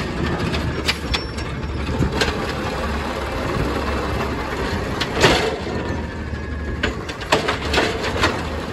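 Natural-gas 2012 Peterbilt 320 garbage truck running steadily while its Amrep automated side-loader arm grabs a recycling cart, lifts it and tips it over the hopper. Clanks and knocks from the arm and cart come throughout, the loudest about five seconds in and several more near the end as the cart is dumped.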